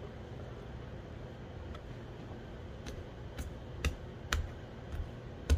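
A hand pressing down on risen bread dough to punch out the air, making a series of sharp taps about twice a second from about three seconds in, over a low steady hum.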